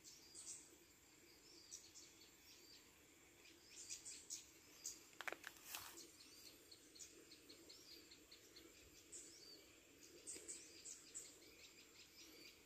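Faint rural ambience: small birds chirping in short, high calls scattered through, with a couple of brief faint clicks about halfway through.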